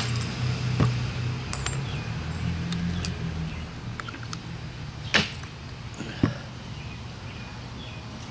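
Hammer striking a steel pin punch to knock spent primers out of .40 S&W brass cases held in a socket: a few sharp metallic taps, the loudest about a second and a half in, with two more around five and six seconds in.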